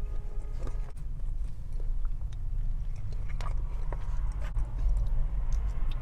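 Close-miked chewing of takeout chicken and fried rice, with scattered wet mouth clicks and smacks, over a steady low rumble.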